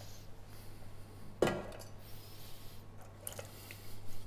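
Kitchen bowls being handled on a wooden worktop: one sharp knock of a bowl set down about a second and a half in, then a few lighter clinks, over a faint steady low hum.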